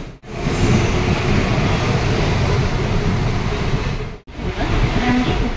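Mumbai suburban local train running: steady, loud running noise, broken twice by abrupt cuts.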